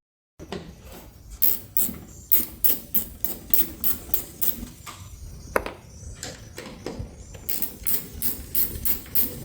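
Hand ratchet clicking stroke after stroke, about two to three clicks a second, as T25 Torx screws are backed out. The clicking gets quicker for the last couple of seconds, and one sharper knock comes a little past halfway.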